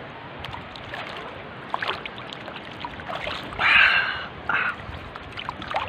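Water splashing and lapping over a steady wash of water noise, with two louder splashes a little past halfway.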